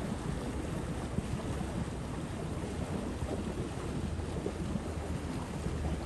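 Wind buffeting the microphone: a steady low rumble with a hiss.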